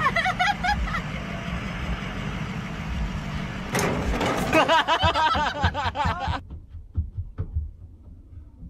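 A steady low rumble, then about two and a half seconds of loud, high-pitched voice sounds that cut off abruptly, followed by a few faint clicks.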